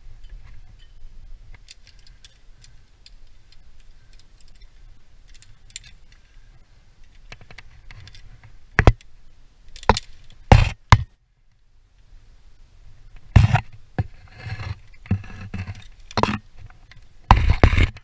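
Knocks, clinks and scrapes of rope-access gear (metal hardware, rope and harness) handled close to a head-mounted camera. Faint light ticks at first, then loud sharp knocks from about nine seconds in, with a rattling flurry near the end.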